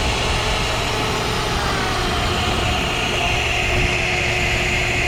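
Boat engine running steadily with a low, constant drone.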